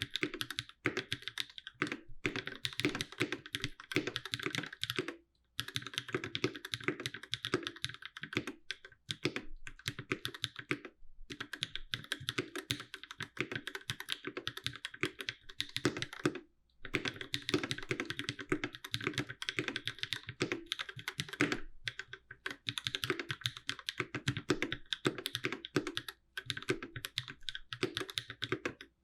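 Fast, continuous typing on a Space65 CyberVoyager custom mechanical keyboard with Durock POM switches and GMK Striker keycaps, with the board sitting without a deskmat. The clacking breaks off briefly a few times.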